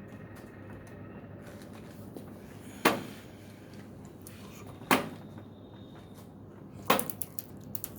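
Three sharp knocks, about two seconds apart, with a few small clicks after the last, from pressing the buttons on a Haier front-load washing machine's control panel to release the child lock.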